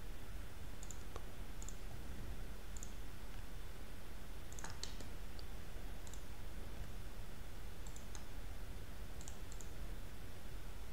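Scattered light clicks of a computer mouse, about a dozen at irregular intervals, over a steady low hum.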